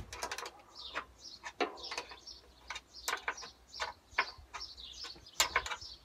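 Hand socket wrench on 13 mm bolts clicking in short irregular runs as a tractor seat's bolts are tightened. Small birds chirp in the background.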